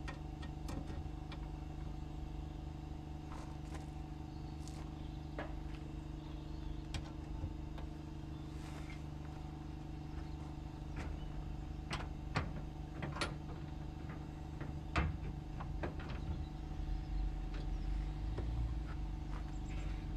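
A steady machine hum with several pitches, unchanging in tone, under scattered sharp clicks and taps; one louder knock comes about fifteen seconds in.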